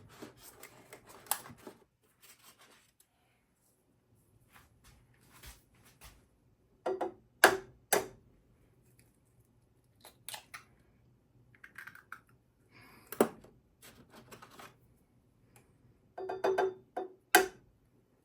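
Sharp knocks and taps several seconds apart, loudest as a close pair about midway through: eggs being cracked for frying in two buttered pans.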